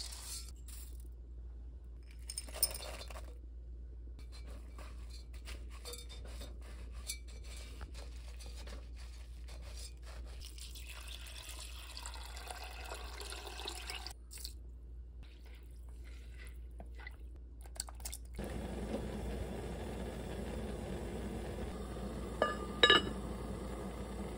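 Kitchen preparation at an enamelled cast-iron rice pot: rice grains pattering into the pot with small clicks, then water poured in around the middle. A steady rushing noise comes in about three quarters through, and near the end a cover clinks sharply twice as it is set onto the pot.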